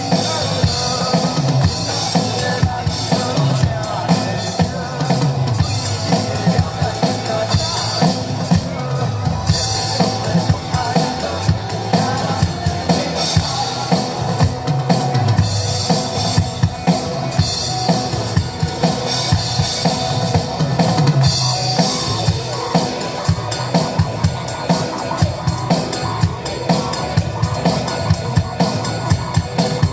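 Band music with a drum kit driving a steady beat on bass drum and snare.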